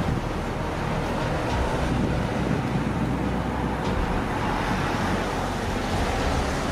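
Steady outdoor rumble of wind on the microphone mixed with distant traffic noise.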